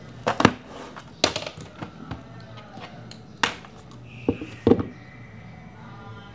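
Hand tools clicking and knocking against a portable speaker's casing as it is taken apart: about eight sharp, irregular knocks, the loudest just under half a second in and about four and a half seconds in.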